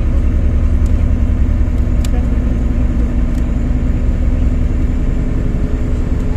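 Kometa hydrofoil's diesel engines running steadily, heard on board as a deep, even rumble with a steady hum over it.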